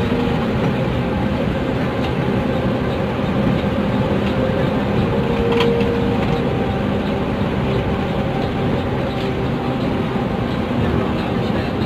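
Intercity coach bus running on the road: a steady engine drone with tyre and road noise, and a short click about five and a half seconds in.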